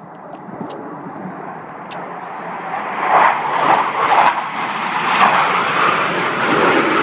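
Jet noise from the Blue Angels' six-jet formation flying past overhead. It swells from faint to loud, reaches full strength about three seconds in and stays loud.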